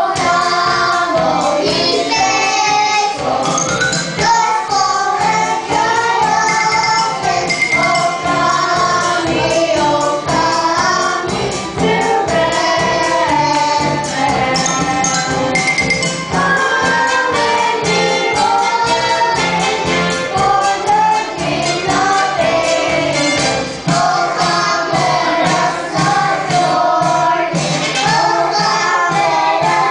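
Children's choir singing a Christmas song into handheld microphones, with a young woman's voice among them, over instrumental accompaniment with a steady beat.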